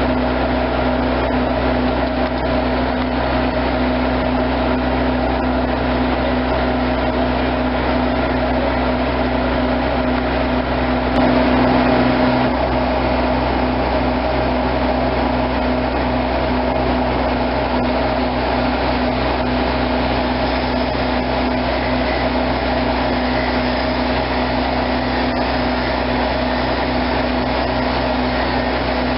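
Heavy equipment engine running steadily at a constant speed: a low hum with a steady mid-pitched drone on top. It gets slightly louder for a moment about eleven seconds in.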